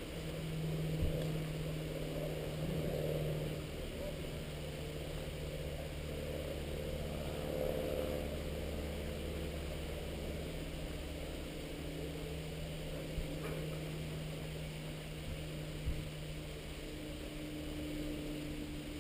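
Steady low hum of a running engine, with a few faint knocks.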